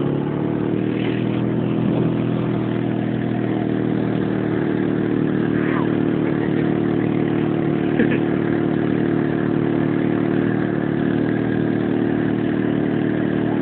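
Engine of the vehicle towing the sled running at a steady speed, with a constant rushing hiss over it. There is a small knock about eight seconds in.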